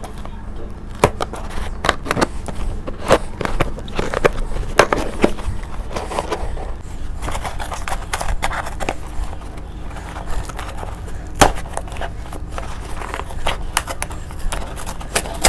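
Small scissors snipping and scraping through packing tape on a cardboard shipping box, with irregular clicks and rustles as the box is handled.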